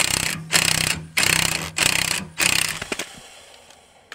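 DeWalt 20V cordless impact wrench hammering in about five short trigger bursts as it turns the screw of a rusted scissor jack, which presses on the tire to break the bead off the rim. The bursts stop about two and a half seconds in and the sound fades out.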